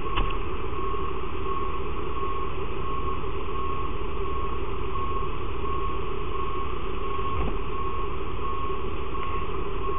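Fire apparatus diesel engine running steadily at high revs, with a short electronic beep repeating about every 0.7 s over it.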